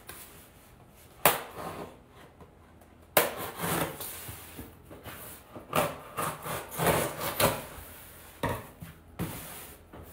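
A delivery box being handled and opened: irregular scraping and rubbing of packaging, in several bursts, the longest about three seconds in and again around six to seven seconds in.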